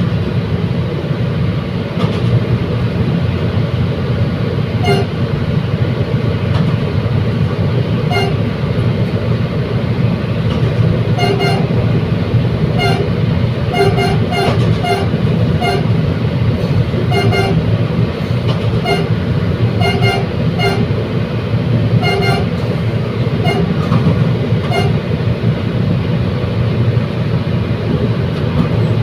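Bicol Commuter train running with a steady low rumble while its horn gives many short toots in quick, irregular succession through the middle of the stretch.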